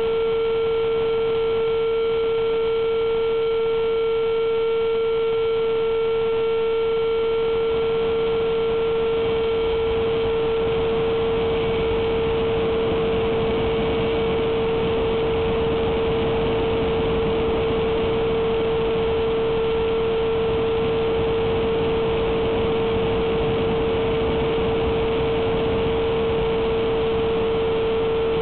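Electric ducted fan of a Durafly Vampire RC jet heard from a camera on board: a steady whine with a single held pitch, over a dense rush of airflow on the microphone.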